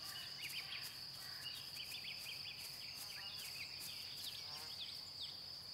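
Faint field ambience: a steady, high-pitched insect trill, with small birds giving short, quick chirps throughout.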